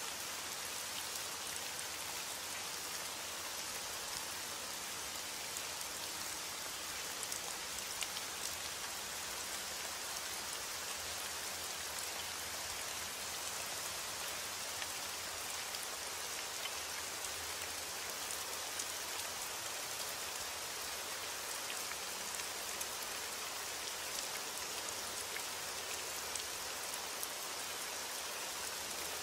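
Steady, even rain falling without a break, with individual drops ticking through the hiss.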